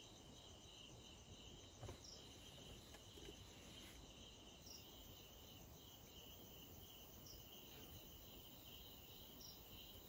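Faint, steady chirring of night insects such as crickets, with a brief higher chirp repeating every second or two.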